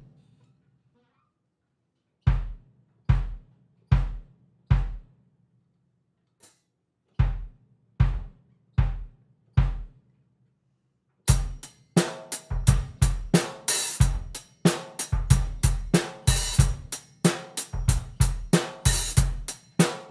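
Gretsch drum kit: the bass drum kicked alone, four strokes a little under a second apart, a short pause, then four more. About eleven seconds in the full kit comes in with a busy groove of kick, snare, hi-hat and cymbals.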